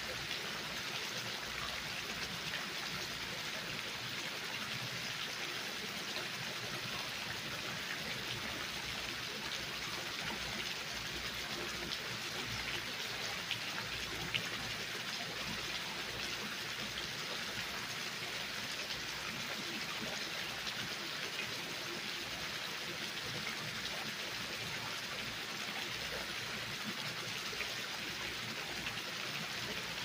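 Water cascading down a stone water wall and splashing into a shallow pebble-lined pool. It makes a steady splashing hiss with scattered small drip-like ticks.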